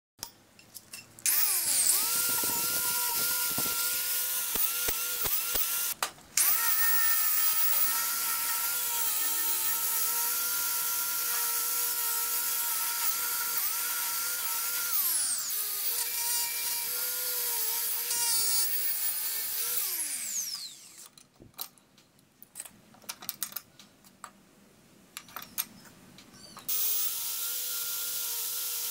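Angle grinder with a wire wheel brush, running and scrubbing rust off small steel hacksaw parts: a steady motor whine over a loud hiss. It cuts out briefly about six seconds in and runs on until about twenty seconds, then winds down with a falling whine. A few scattered clicks and knocks follow before it starts again near the end.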